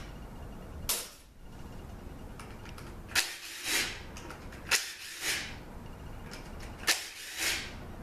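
Cordless drill/driver backing small Torx bolts out of a 5L40E automatic transmission's valve body in short bursts: a sharp click, then a brief whir, four times about two seconds apart.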